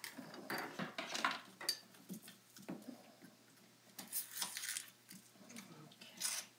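A table knife cutting pieces off a stick of butter on a plate: a series of short clinks and scrapes of the knife against the plate, with a longer scraping stretch about four seconds in and another near the end.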